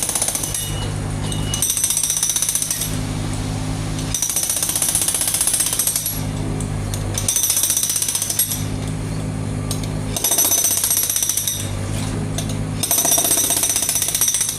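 Jackhammer breaking up concrete in repeated bursts of one to two seconds of rapid hammering, with a machine's engine droning in the gaps between bursts.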